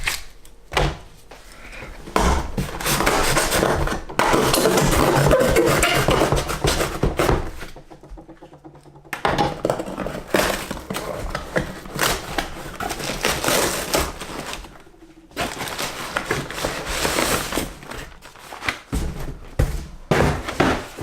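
A shipping package being opened by hand: long stretches of tearing and rustling packaging, with scattered knocks and thunks as the contents are handled.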